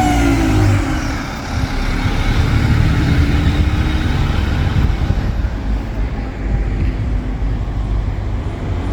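ADL Enviro 200 single-decker bus running on the road with a deep diesel rumble and road noise, its engine note rising and falling slightly a few seconds in.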